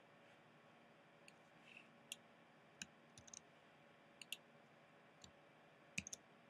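Faint, scattered clicks of a computer keyboard and mouse, about a dozen at irregular intervals, some in quick pairs and a cluster of three, over quiet room tone.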